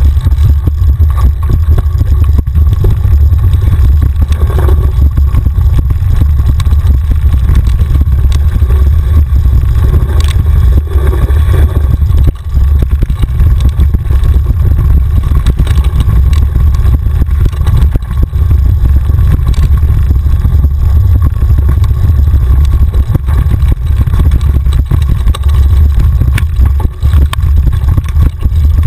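A mountain bike riding fast down rough dirt singletrack: a heavy, constant rumble of wind and vibration on the camera's microphone, with continual rattling and knocks from the bike over the ground.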